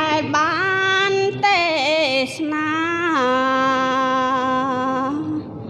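A woman singing a slow, ornamented Buddhist devotional chant in Khmer into a microphone, her voice gliding between notes, then holding one long low note for about two seconds before trailing off near the end.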